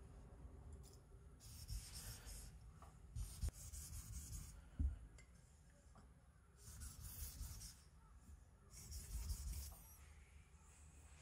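Small deba kitchen knife stroked on a wet 2000-grit whetstone: four spells of gritty scraping about a second each, with a single light knock about halfway through. The strokes are finishing the edge with a small micro-bevel on this grit.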